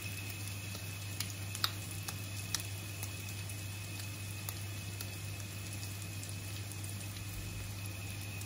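Minced pork cutlets frying in a pan of vegetable oil and butter: a steady sizzle, with a few sharp pops in the first three seconds, over a steady low hum.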